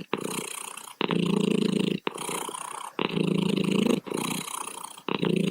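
Domestic cat purring steadily, the purr swelling louder and then softer about once a second as it breathes in and out.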